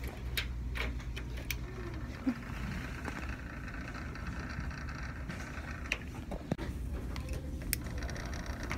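Steady low rumble of shop background noise, with scattered clicks and knocks of a handheld phone being moved and handled.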